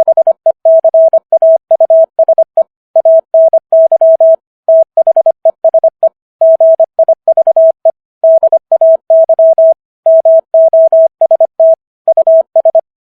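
Morse code tones at 25 words per minute: a single steady pitch keyed on and off in quick dits and dahs, spelling out common English words with short pauses between them. About seven words are sent, and the keying stops near the end.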